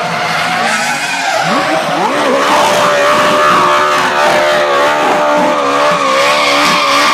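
Toyota GT86 drift car sliding sideways: the engine revs high with its pitch wavering up and down, over the hiss and squeal of the spinning rear tyres.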